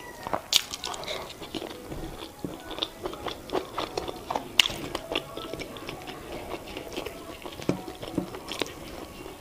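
Chewing of boiled yam with garden egg (eggplant) sauce, with many short wet mouth clicks, the sharpest about half a second in and again about four and a half seconds in.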